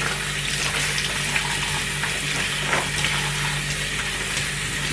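Kitchen tap running in a steady stream over pickled mustard greens and into a metal mesh strainer in the sink, splashing lightly as the leaves are rinsed by hand.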